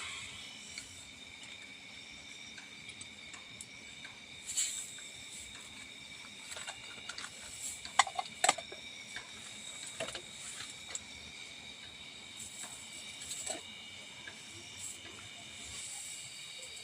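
Steady, high-pitched insect chorus made of several even tones, with scattered clicks and knocks over it; the loudest are two sharp clicks about eight seconds in.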